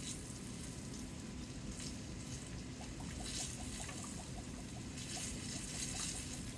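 Soy sauce being poured from a bottle, trickling, with a run of quick small glugs through the middle, over the steady sizzle of tofu frying in a skillet.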